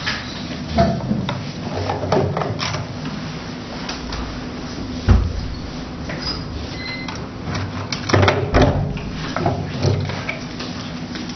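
Handling noise from the slimming machine's plastic handpieces being picked up and moved: irregular knocks, bumps and rattles over a steady low hum. The loudest knocks come about five seconds in and again a little after eight seconds.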